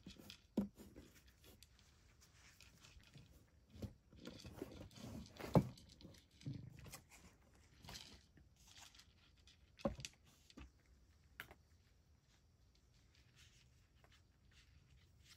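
Cat eating breakfast: faint, irregular clicks and small knocks of chewing and food in the bowl, the sharpest about ten seconds in.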